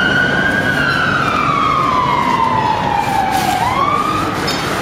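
A siren wailing: one high tone that slides slowly down over about three seconds, then swoops back up briefly and cuts off near the end.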